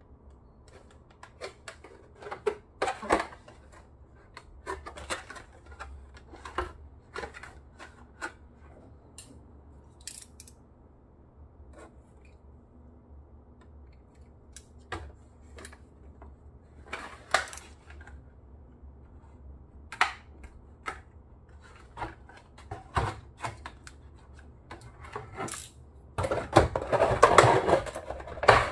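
Stiff clear plastic blister packaging handled and cut open: scattered clicks and crackles as the tray is turned and a craft knife slits the tape holding it shut, then, about two seconds before the end, a dense, louder spell of crinkling as the tray is pried apart.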